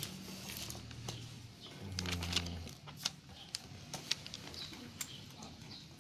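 Faint clicks and taps of small plastic Lego pieces being handled and pressed together, over a low hum, with faint bird chirps in the background.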